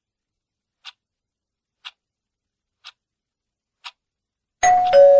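Quiz countdown timer ticking once a second, five ticks, then about four and a half seconds in, as the countdown runs out, a loud half-second time-up sound of two steady notes, the second lower.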